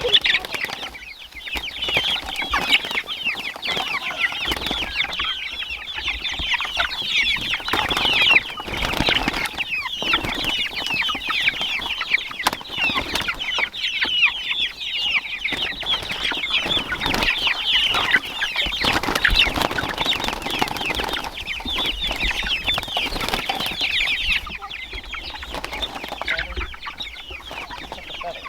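A flock of chickens in a chicken tractor calling just after being fed: many short, high peeps and clucks overlapping without a break, thinning a little near the end.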